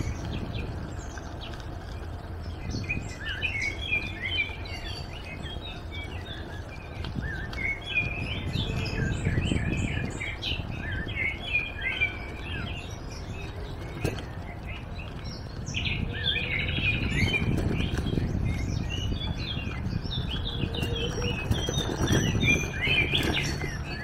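Many small songbirds chirping and calling in quick, overlapping notes, over a steady low background rumble.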